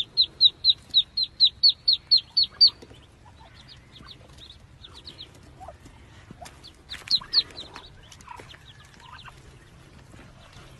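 Ducklings peeping: a fast run of loud, high peeps, about four a second, for the first few seconds, then scattered softer peeps with a few louder ones about seven seconds in.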